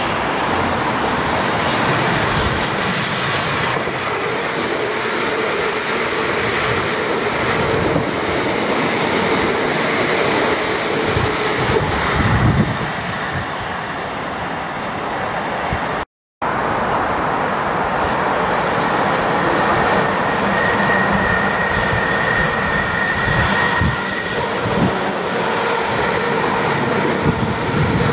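South Western Railway Desiro electric multiple units running on the line: a steady rumble of wheels on rail with a whine from the traction motors, which holds a high note for a few seconds about two-thirds through. The sound drops out briefly a little past halfway, and a train passes close near the end.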